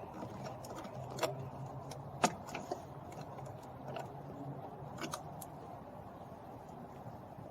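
A few scattered sharp clicks and light metallic taps from hand tools and fasteners being handled during reassembly of a car door panel, the loudest about two seconds in, over a steady low hum.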